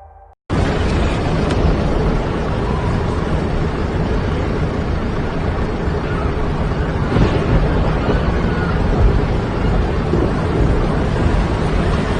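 A loud, steady rushing noise with no clear tone or rhythm. It cuts in abruptly about half a second in, after a moment of silence.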